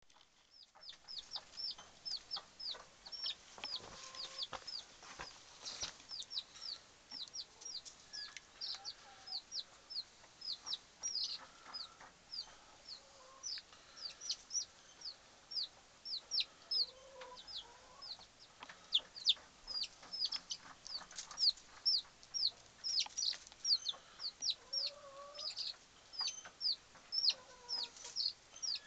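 Baby chicks peeping continuously: a steady stream of high, downward-sliding peeps, several a second, with a few softer, lower calls among them.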